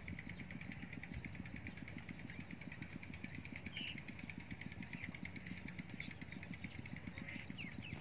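Rural field ambience: a steady, fast-pulsing high trill, with a few short bird chirps about four seconds in and again near the end, over a low rumble.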